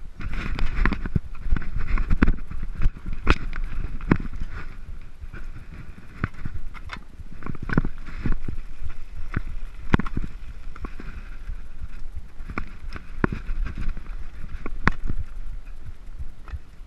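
Mountain bike descending a rocky dirt singletrack: tyres rumbling over dirt and stones, with frequent sharp knocks and rattles from the bike as it hits bumps.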